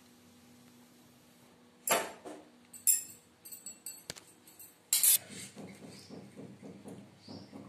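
Stainless-steel kitchenware clanking: three loud metal clatters with a short ring, about a second apart, with small clicks between, then lighter repeated knocks and clinks.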